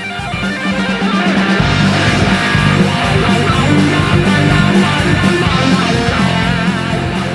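Electric-guitar rock music, with a heavier low end coming in about a second and a half in.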